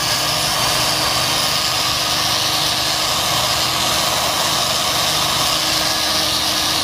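Homemade electric checkering tool running steadily, its motor-driven cutter scoring diamond checkering lines into a wooden gun-stock blank.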